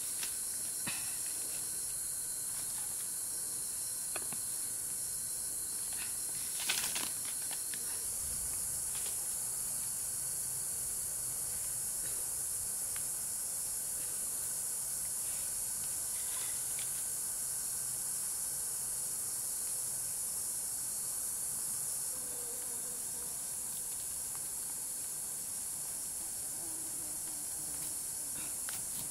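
Steady high-pitched insect chorus, with one brief knock about seven seconds in.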